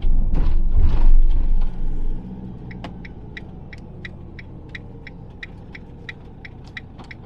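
Motorhome cab while driving slowly: a loud low rumble for the first two seconds, then steady low engine and road noise. From about three seconds in, the turn indicator ticks evenly about three times a second as the vehicle turns off.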